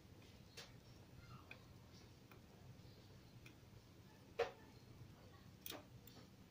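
Near silence broken by a few light, irregular clicks, the loudest about two-thirds of the way through: small handling noises from work on a CRT TV's circuit board.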